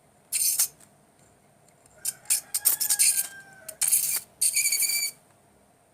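Homemade 12 V battery arc welder striking an arc on metal: four short bursts of crackling, sizzling sparks, the longest about a second and a half, some carrying a thin whistling tone.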